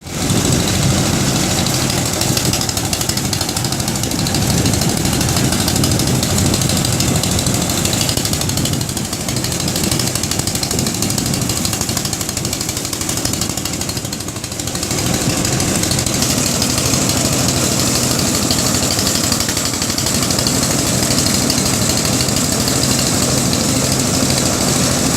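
Engine-driven rice paddy blower machine running steadily, a loud continuous mechanical noise with a low engine hum. It eases off slightly about the middle, then comes back to full level.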